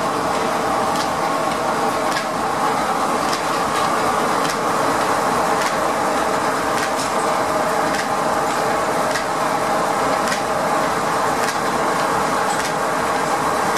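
Steam-powered sawmill machinery running steadily: a single-cylinder steam engine driving flat belts and pulleys and a large circular saw blade, spinning with no log being cut. A continuous mechanical hum with a sharp tick about once a second.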